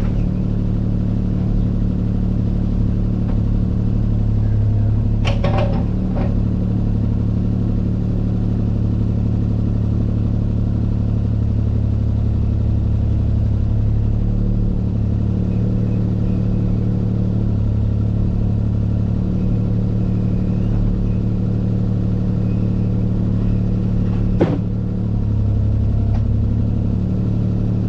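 Heavy-equipment diesel engine running steadily, with two sharp clanks.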